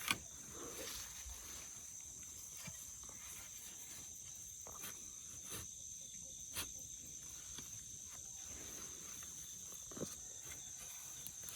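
Steady high-pitched shrilling of insects in late-summer garden vegetation, with a few scattered soft knocks and rustles from digging in the soil.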